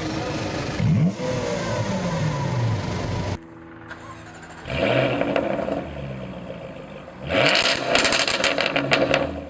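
Car engines starting and revving. A rev rises and falls, then the sound cuts at about three seconds to a second engine that catches with a loud burst and settles. Near the end that engine revs hard with a run of sharp exhaust cracks.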